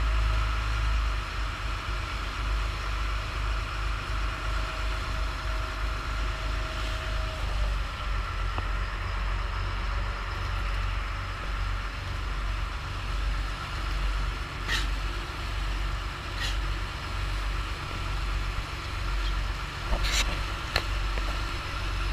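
A boat's engine running steadily underway, a heavy low rumble mixed with the rush of its churning wake. A few brief sharp knocks or splashes come in the second half.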